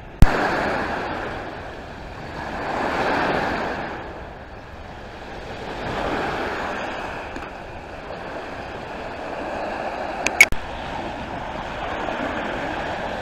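Lake waves washing onto an icy, slushy shoreline, the rush swelling and fading every few seconds. A sharp, loud click comes right at the start and a pair of clicks about ten seconds in.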